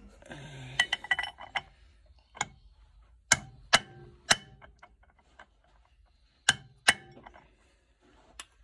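Steel sockets on an extension clinking against a clutch drum and its new bearing as they are set up as a bearing driver: a quick rattle of handling first, then about seven separate sharp metallic clinks, each with a brief ring.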